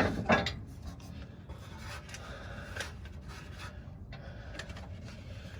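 Scattered light clicks and rubbing of hands and tools working on parts, with a sharper knock near the start.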